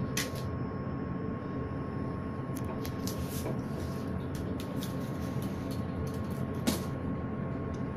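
Steady low drone of a ship's machinery and ventilation heard in a cabin, with a faint steady whine. Scattered light clicks and ticks come through it, and a sharper knock comes near the end.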